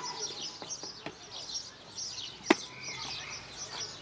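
A clear plastic clip-lock food container being opened, its snap latches giving sharp clicks, the loudest about two and a half seconds in. Small birds chirp steadily behind it.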